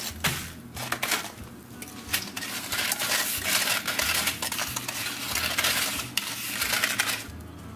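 Metal tongs rolling fried corn dogs through granulated sugar on a metal sheet pan: gritty scraping of sugar against the tray, with repeated clicks of the tongs on the pan.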